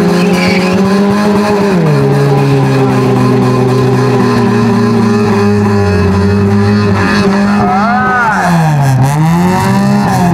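Car engines running hard in a demolition drag race. The engine pitch drops about two seconds in, then dips sharply and climbs again near the end.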